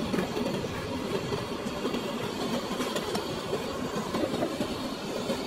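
Gas burner heating a pot of molten lead, giving a steady low rushing noise.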